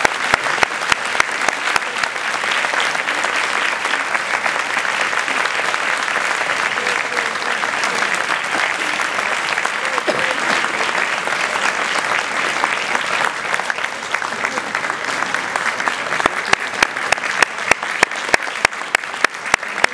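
Audience applauding, with one nearby pair of hands clapping loudly and evenly at about two and a half claps a second, standing out most clearly near the end.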